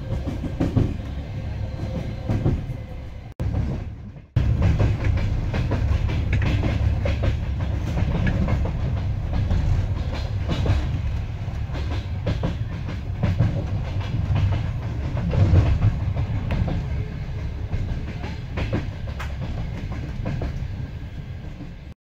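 Moving train heard from on board: a steady low rumble of the running gear with wheels clicking over the rail joints. The sound drops away briefly about four seconds in, then carries on as before.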